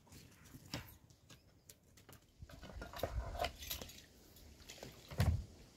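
Light clicks and knocks of cooking gear being handled, then water poured from a plastic jerrycan into a metal pan. A single heavy thump comes near the end.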